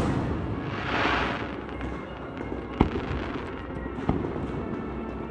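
Fireworks display: a crackling hiss from a bursting aerial shell swells about a second in, then a sharp bang about three seconds in and a smaller one a second later.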